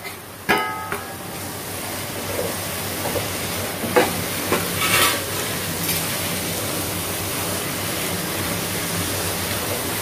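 Onion-tomato masala with ground spices sizzling steadily in a nonstick pan as a metal spatula stirs it. The spatula gives a ringing clink against the pan about half a second in, and scrapes sharply around four and five seconds.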